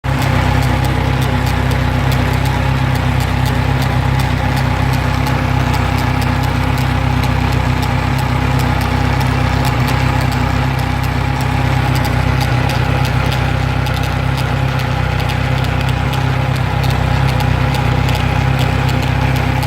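Kawasaki Z1000SX's new DID 525 ZVMX chain running over fresh Sunstar sprockets with the inline-four engine turning steadily, a regular ticking over the engine note. The chain is noisy despite correct bolt torques and several re-tensionings, and its cause is unknown to the owner.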